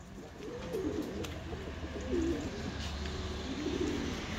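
Domestic pigeons cooing in a loft: a few short wavering coos, over a low steady hum.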